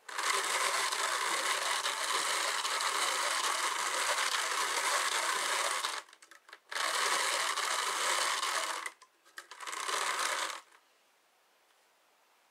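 Hand-cranked drum carder turning, its toothed drums whirring steadily as pink wool is fed in. It runs in three spells, about six seconds, then two, then one, and stops shortly before the end.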